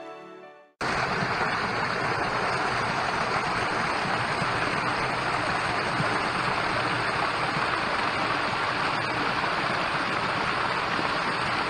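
Small trickling waterfall: water pouring in spouts over a red clay bank and splashing into a shallow pool, a steady rush that starts suddenly about a second in.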